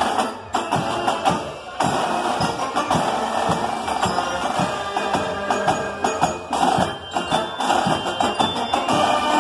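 Drum corps and brass band playing a German military march: crisp marching snare drum strokes under trombones and other brass. The band drops back briefly about half a second in and plays on in full from about two seconds in.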